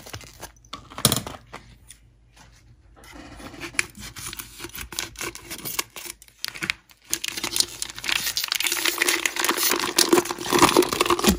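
A vacuum-sealed plastic bag of marinated pork being cut open and squeezed out over a pressure cooker's inner pot, the plastic crinkling and rustling. There is a sharp click about a second in, and the crinkling grows louder near the end.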